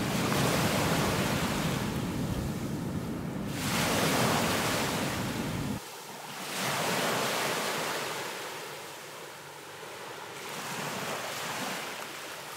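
Sea waves washing in and drawing back in slow swells a few seconds apart, with wind rumbling on the microphone until it cuts off about halfway through.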